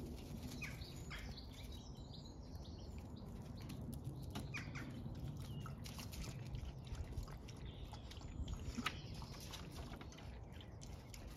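Outdoor ambience: small birds chirping now and then over a low steady rumble, with a few faint clicks.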